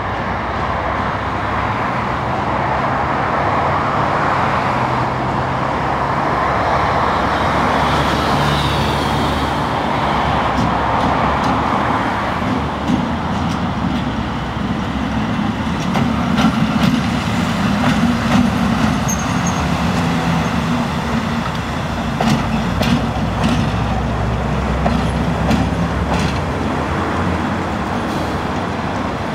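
ChME3 shunting diesel-electric locomotive running past with its six-cylinder ČKD diesel engine throbbing steadily, loudest a little past halfway as it passes closest. Through the second half come sharp clicks from the wheels crossing rail joints and points.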